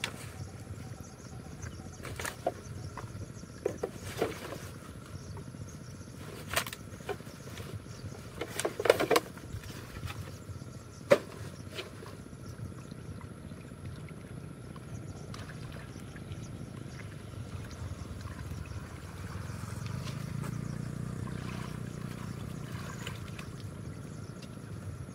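Sticks and rubbish being pulled from shallow water and stuffed into a black plastic garbage bag: scattered crackles and a handful of sharp clatters in the first half. In the second half a low hum swells and fades.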